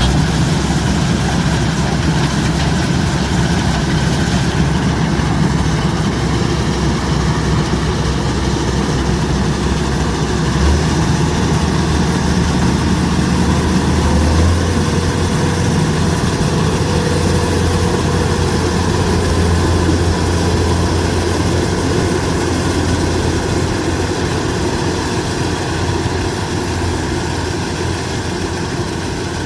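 Kubota DC-105X combine harvester's diesel engine running steadily under harvesting work, a loud, even drone. Its low note steps up slightly about halfway through.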